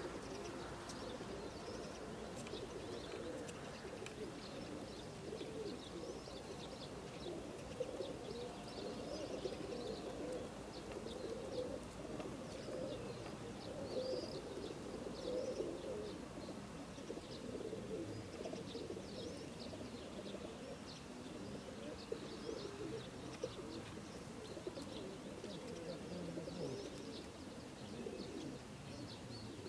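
Many racing pigeons cooing together in the crates of a pigeon transporter truck, overlapping coos without a break. Short, high chirps of small birds sound now and then above them.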